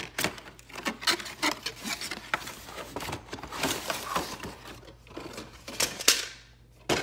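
Cardboard toy box being opened and its packaging handled: a busy string of short taps, clicks and rustles, with a longer sliding scrape about six seconds in.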